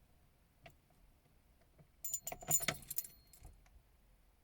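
Light metallic jingling and clinking for about a second, starting a little after two seconds in, preceded by a single faint click.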